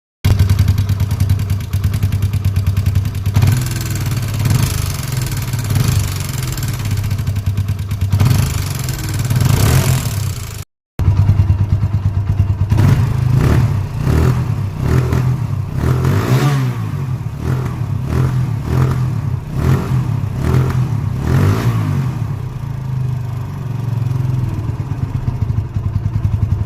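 TVS Apache 160 motorcycle's single-cylinder engine running and being revved, in two takes joined by a brief cut a little before halfway. The second take has a run of quick throttle blips, each rising and falling in pitch, before settling back to idle.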